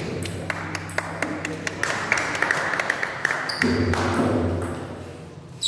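Table tennis rally: the celluloid ball clicks sharply off rackets and the table in quick succession, thinning out after about two seconds.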